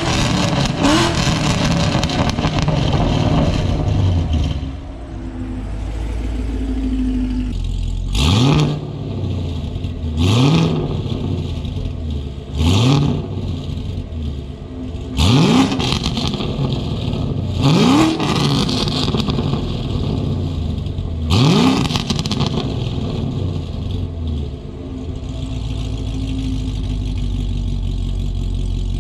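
A 2018 Camaro SS 1LE's 6.2-litre LT1 V8 with aftermarket headers being free-revved from idle. A rev dies away at the start, then six short, sharp throttle blips come two to four seconds apart, each sweeping up and dropping back to idle. After the last blip, a bit past twenty seconds in, it idles steadily.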